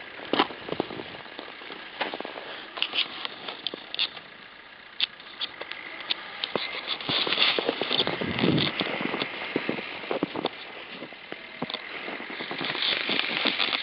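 Irregular crunching and crackling of footsteps in deep snow, with a 4x4's engine running faintly underneath.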